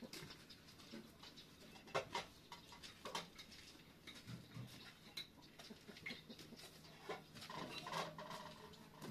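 Quiet outdoor yard ambience with scattered light clicks and knocks from handling pots and trays, and a few faint bird chirps.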